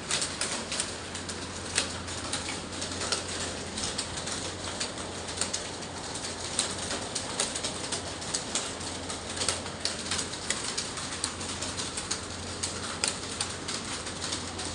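Clatter of many computer keyboards being typed on at once: dense, irregular, overlapping key clicks over a steady low hum.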